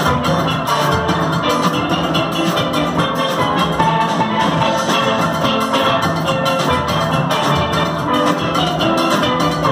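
A steel band playing a tune together, many steel pans struck with mallets in a quick, steady rhythm.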